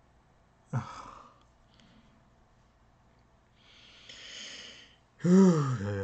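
A man's exasperated breathing and vocalising: a short sharp exhale with a falling voice about a second in, a long breathy exhale around four seconds in, then a louder drawn-out hum that rises and falls in pitch near the end.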